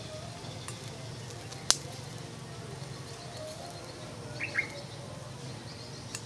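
Quiet rural outdoor ambience with a bird chirping briefly about four and a half seconds in, and a single sharp click a little under two seconds in.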